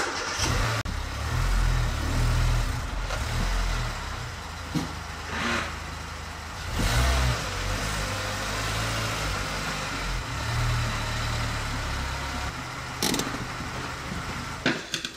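The 1.5-litre four-cylinder petrol engine of a 2006 Mercedes-Benz A150 (W169) running as the car creeps up onto car ramps, revving up in a few short surges under load. There is a short sharp knock near the end.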